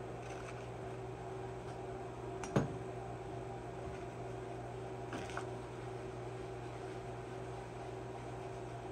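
Steady low hum of workshop background noise. One sharp knock about two and a half seconds in and a few light clicks around five seconds in come from hand tools being picked up and set down on the workbench.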